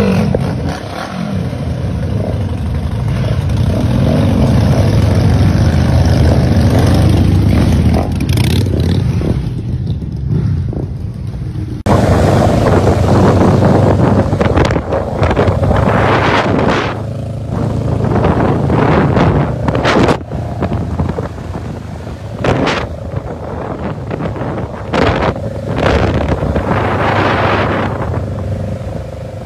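Several motorcycle engines running together with a deep rumble that swells over the first few seconds. About twelve seconds in it changes to engine and road noise on the move, with gusts of wind buffeting the microphone.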